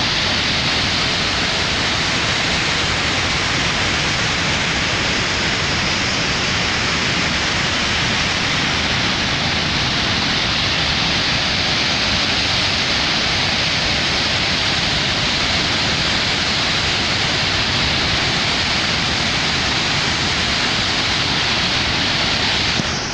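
Waterfall rushing: a loud, steady, unbroken wash of falling water.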